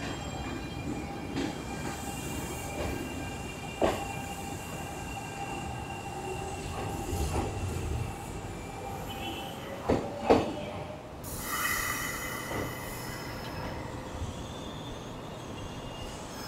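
Kintetsu electric train moving along the station track, its wheels squealing steadily, with a few sharp clacks over the rail joints. About eleven seconds in comes a burst of hissing air.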